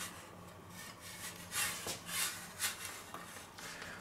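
A pizza peel pushed in a few short, soft scrapes across a floured wooden board and under the pizza dough.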